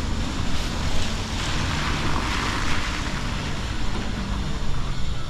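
Street traffic: a steady low engine rumble, with a vehicle passing about a second and a half in that brings a swelling hiss which fades again.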